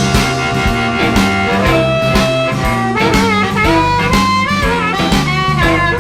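Blues band playing an instrumental stretch between sung lines: a lead line that bends in pitch over bass and drums keeping a steady beat.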